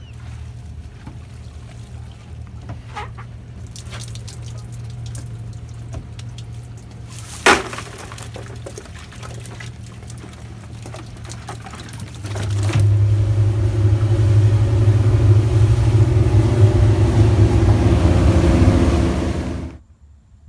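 Boat motor running steadily at low speed, with one sharp knock about seven seconds in; a little past halfway the motor is throttled up and runs much louder with water rushing, then the sound stops abruptly near the end.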